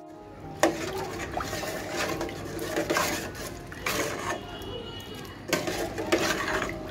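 Metal spoon stirring a watery mix of rice, lentils and potatoes in a metal pot, scraping and clinking against the pot's sides and bottom. The sharpest clink comes about half a second in.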